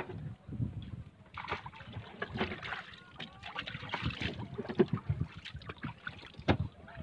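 Water sloshing and lapping around a small fishing boat, with irregular knocks and handling noises that come and go in uneven bursts.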